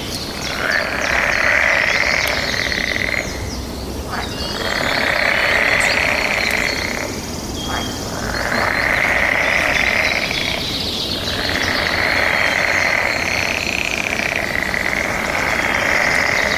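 A chorus of frogs calling in long swells, each rising and fading over a few seconds, four times over. Faint short bird chirps sound high above it.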